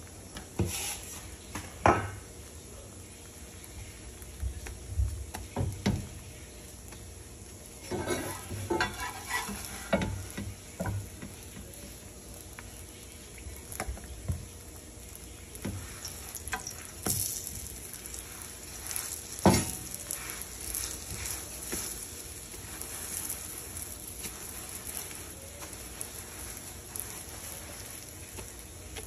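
A chapati frying in a pan with a faint sizzle, while a metal slotted spatula scrapes and taps against the pan as the flatbread is pressed and turned. The sharpest knocks come about two seconds in and again about two-thirds of the way through.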